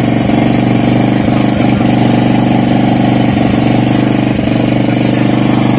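An engine on the fishing boat running steadily, a low even hum with a fast regular firing beat.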